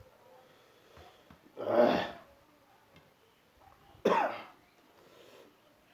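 A person coughs twice, the two coughs about two and a half seconds apart, the second starting more sharply.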